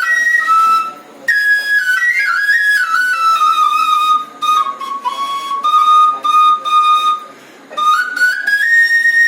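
Bansuri (Indian bamboo flute) playing a solo melody: a single clear, high line that steps down gradually through the middle of the phrase and climbs back up near the end, with short breath pauses about a second in and again about three-quarters of the way through.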